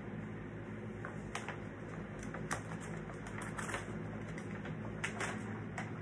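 Irregular light clicks and crackles, a dozen or so, scattered over a steady low hum.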